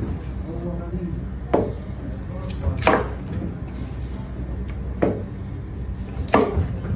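Knife cutting through a narrow-barred mackerel loin onto a cutting board: four sharp strokes, one to two seconds apart, each dying away quickly, over a steady low hum.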